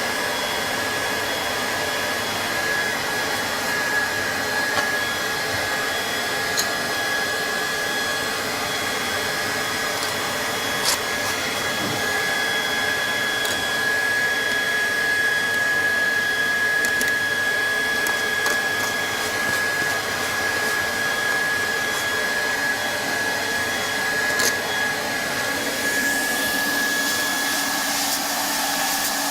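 Hand-held hot-air plastic welding gun for vinyl flooring, its blower running steadily with a thin high whine, and a few faint clicks.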